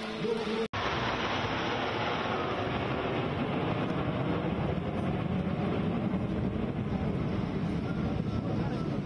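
Jet engines of a formation of aerobatic jets flying past: a steady rushing noise that starts after a sudden cut less than a second in.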